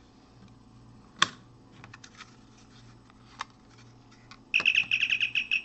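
Star Trek communicator prop handled with a sharp click about a second in, then, about four and a half seconds in, its electronic chirp: a loud, fast warbling trill of high beeps.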